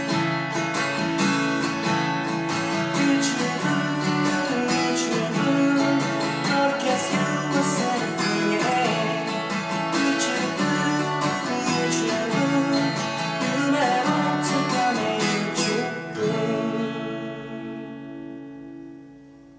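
Takamine acoustic guitar strummed in a brisk, steady rhythm, ending on a final chord left to ring and fade away over the last few seconds.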